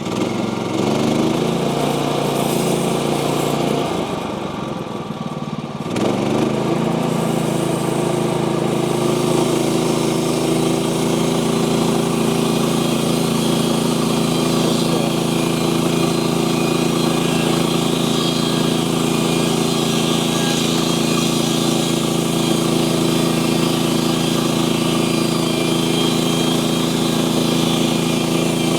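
Portable sawmill's engine running under power; it eases off about four seconds in, picks up sharply about six seconds in, and then runs steadily.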